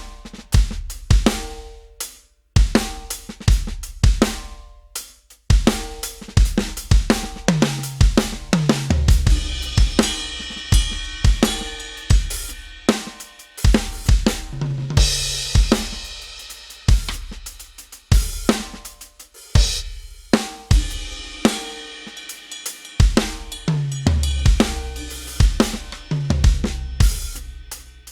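Addictive Drums 2 sampled drum kit played from an Avatar SD301-1 electronic drum kit: a groove of kick, snare, hi-hat and cymbals. Descending tom fills come several times, and crash cymbals ring out in the middle.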